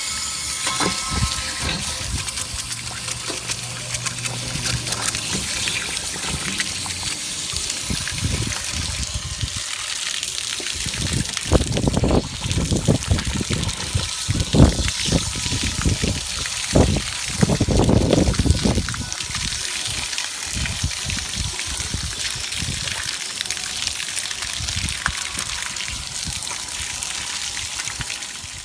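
Water from an RV water heater tank rinser wand spraying inside the tank and gushing out of the drain opening, flushing out sediment, in a steady rush. Bursts of low rumble come and go midway through.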